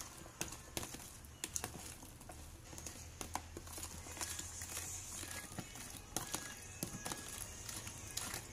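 Hands and a spoon stirring a vinegar marinade of chopped onion, ginger and cucumber in a plastic tub: wet sloshing with irregular clicks and knocks against the plastic.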